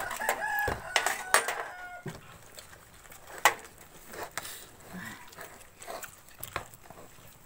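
A rooster crows during the first two seconds. After it come scattered clinks of spoons against bowls and a metal serving tray, the sharpest about three and a half seconds in.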